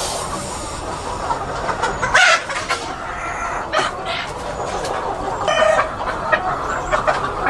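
A flock of chickens clucking and calling, with one louder call about two seconds in.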